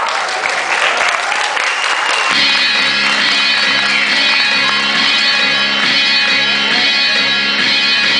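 Audience applauding. About two seconds in, music starts with steady held chords and carries on under the applause.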